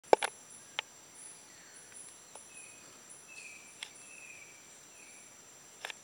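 Rainforest ambience: insects hold steady high-pitched tones while short high calls repeat over and over. A few sharp clicks cut through, the loudest right at the start and another just before the end.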